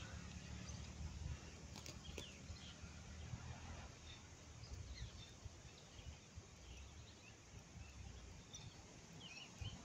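Near silence: faint outdoor background with a low hum and a few scattered faint chirps and clicks.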